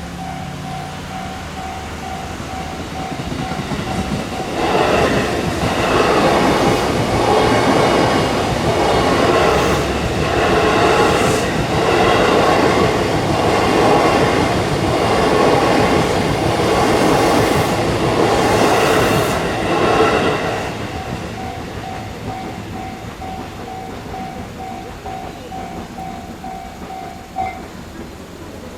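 Japanese level-crossing warning bell dinging steadily. About four seconds in, a JR East E233-series electric commuter train passes for about sixteen seconds, its wheels clacking rhythmically over the rail joints and drowning the bell. The bell is heard again as the train goes, then stops about a second before the end.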